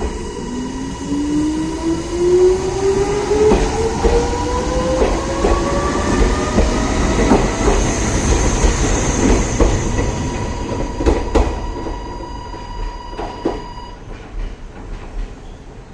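Meitetsu electric train pulling away, its motor whine rising steadily in pitch as it gathers speed, with the wheels clicking over the rail joints. The sound eases off in the last few seconds.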